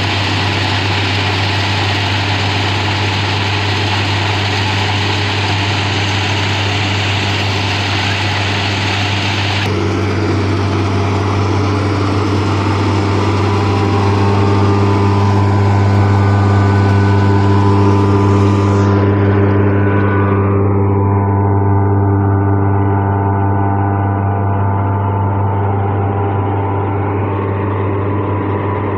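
New Holland combine harvester with a straw-chopping (tudi) attachment running steadily under load: a constant deep hum with several held tones over it. The hissy top of the sound drops away abruptly about ten seconds in, and the sound turns duller again near twenty seconds.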